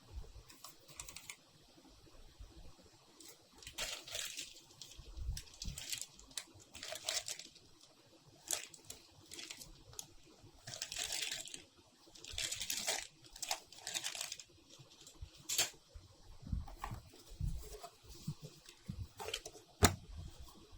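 Typing on a Royal Kludge Sink87G mechanical keyboard with RK Brown switches: short bursts of rapid key clicks separated by pauses, with one sharper, louder click near the end.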